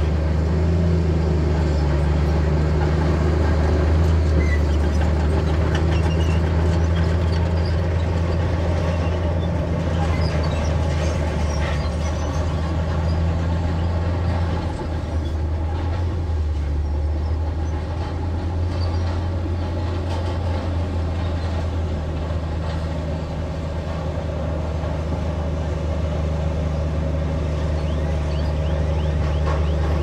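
Bulldozer's diesel engine running steadily under work, a deep continuous drone that eases slightly in the middle and picks up again near the end.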